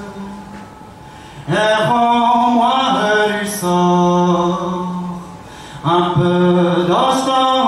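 A man singing a traditional Breton song solo and unaccompanied, in long held notes. After a pause for breath, a phrase starts about a second and a half in, and there is another short break near six seconds.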